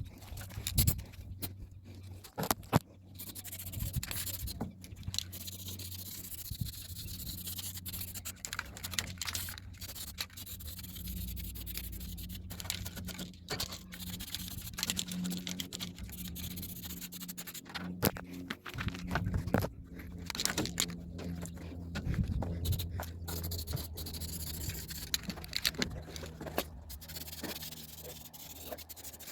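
Scraping and handling noises with scattered clicks and knocks, over a low steady hum.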